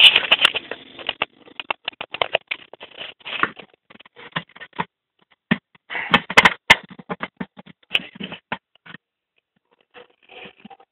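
Irregular clicks, knocks and scraping of hard parts being handled, as in work on a clothes spin dryer, with a denser cluster of knocks about six seconds in.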